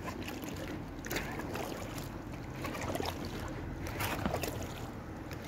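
Kayak paddle strokes in calm river water: a dip and splash from the paddle blades every second or so, over a low steady rumble.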